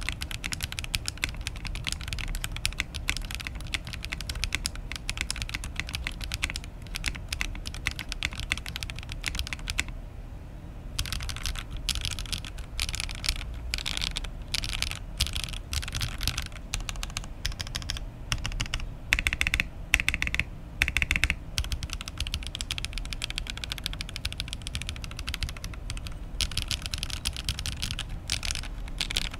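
Typing on an Oasis 65 mechanical keyboard built without case foam and fitted with thin Ghost Judges keycaps: a dense, continuous run of key clacks. There is a brief pause about ten seconds in and a few louder strokes around twenty seconds in.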